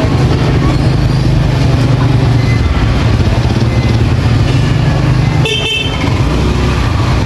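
Steady low rumble of road traffic, with a vehicle horn tooting briefly about five and a half seconds in.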